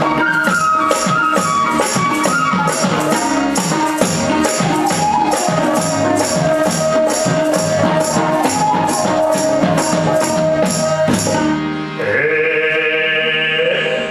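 Nepali folk ensemble playing, with madal and tabla drums, harmonium, bansuri flute and sarangi under a steady jingling percussion beat. The percussion stops about eleven seconds in, and a long held note takes over near the end.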